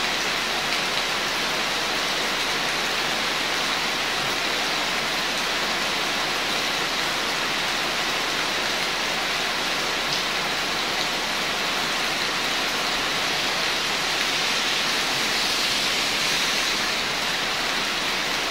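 Steady rain falling, a dense even hiss that swells slightly for a couple of seconds near the end.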